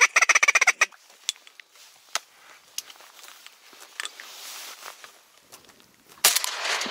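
A fast, chattering run of duck quacks in the first second. Then it goes quiet apart from a few light clicks, until a loud rustling noise starts about six seconds in.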